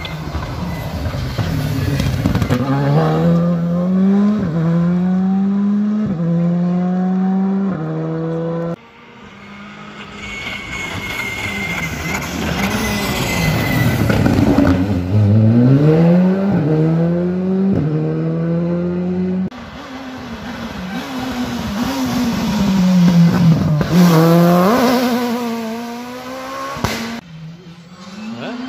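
Rally cars accelerating hard through the gears. The engine note climbs and drops back at each upshift, in several short passes cut one after another.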